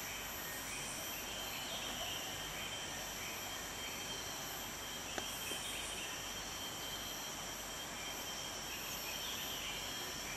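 Steady chorus of insects calling, several high-pitched tones held at different pitches with some pulsing calls among them, and one brief click about halfway through.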